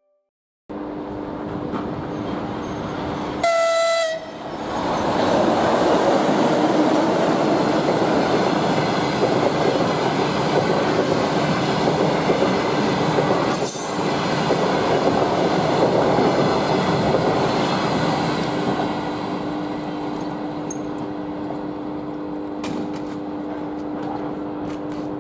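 An EP2K DC electric locomotive gives one short horn blast about three and a half seconds in. Then a passenger train goes by at speed: the steady noise of wheels and coaches with a constant hum, loudest in the middle and easing off as the last coaches pass.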